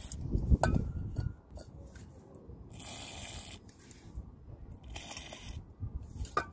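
Aerosol cleaner spraying from a can in two short hisses, about three and five seconds in, washing oil off a diesel MAP sensor. A few handling knocks and clicks come at the start.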